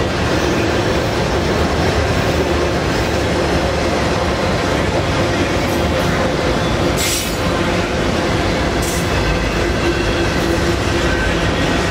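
Freight train of autorack cars rolling past close by: a steady loud rumble of steel wheels on rail, with a brief hiss about seven seconds in.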